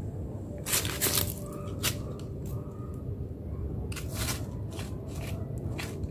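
Short scratchy scrapes and rustles of cats' paws on paving stones and dry leaves as they paw at a beetle, loudest about a second in and again around four seconds, over a steady low rumble.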